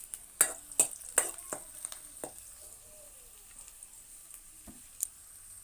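A spoon stirring a pot of curry on the stove, knocking sharply against the pot five or six times in the first two seconds or so, over a steady faint sizzle. Fainter scrapes and ticks follow, with one more knock near the end.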